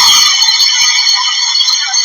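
A loud, steady, high-pitched alarm-like tone with many overtones, holding one pitch without rising or falling.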